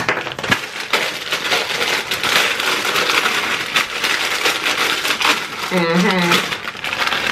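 Crinkly plastic snack bags of Takis rolled tortilla chips rustling and crackling as the chips are shaken out and pour onto a heap, with many small clattering crunches. A short vocal sound about six seconds in.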